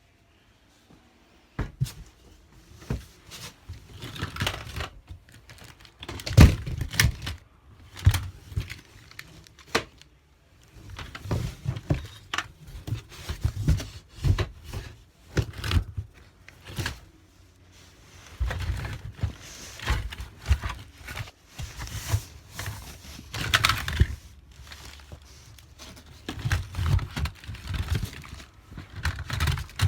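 Objects being handled and moved about: an irregular run of knocks, thuds and rustling, with clusters of sharper clicks.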